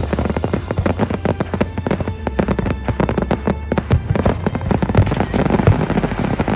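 Aerial fireworks bursting in a rapid, dense run of sharp pops and crackles, many a second, over music with a steady deep bass.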